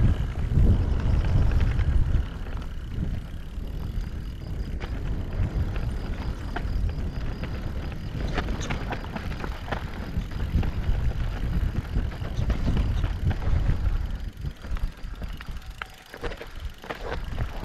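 Mountain bike rolling over a rough, stony trail: tyres crunching over loose stones and the bike rattling, with many scattered clicks. Wind buffets the camera microphone as a low rumble, loudest in the first couple of seconds.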